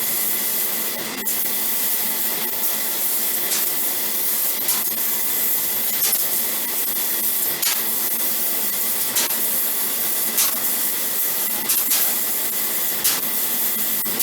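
CNC laser cutting machine running: a steady hiss with a faint steady high whine and short clicks every second or so.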